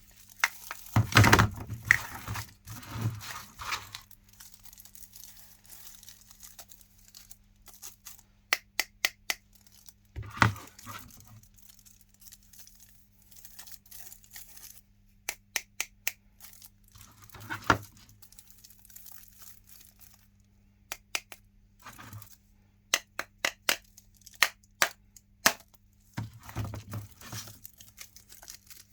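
Foil wrappers of chocolate Santa Claus figures crinkling and tearing, in irregular bursts with sharp clicks and cracks, over a faint steady hum.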